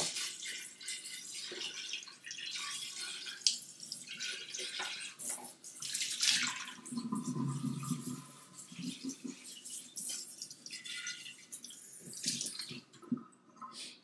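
Water running and splashing in a kitchen sink, uneven, with short breaks.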